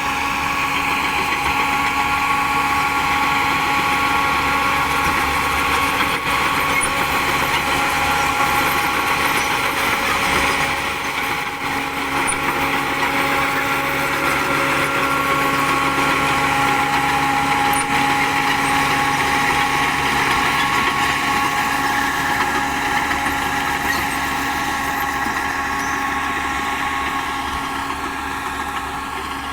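Diesel engine of a Shantui DH10B2 mini crawler bulldozer running steadily, with a high, steady whine over the engine noise.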